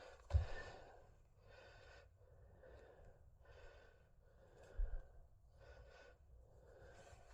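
Squeeze bottle of graphite powder puffed over and over onto a uPVC door lock gearbox: faint airy puffs about once a second, with a soft knock of handling shortly after the start and another about 5 s in.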